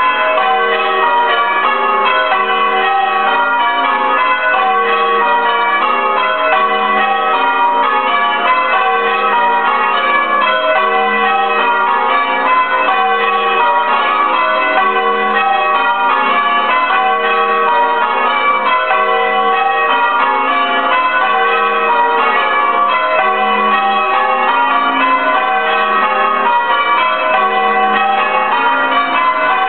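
Six church bells, the back six of a ring of eight Mears & Stainbank bells cast in 1888 with a tenor of about 13 cwt in F sharp, rung full-circle in call changes. It is a steady, unbroken run of rounds-like rows, one bell striking after another at an even pace, with each note ringing on under the next.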